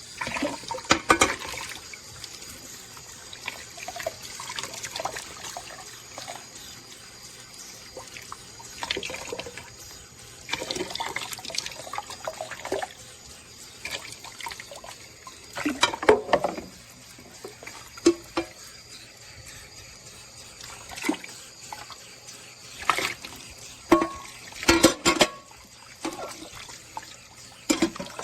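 Running water, with irregular clattering and knocking of hard objects, the loudest about a second in, around sixteen seconds and near twenty-five seconds.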